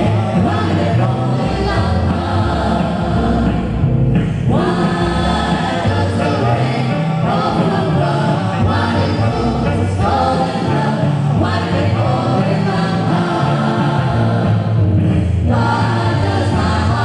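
A mixed group of men's and women's voices singing a song together into microphones, amplified, with steady low bass under the voices.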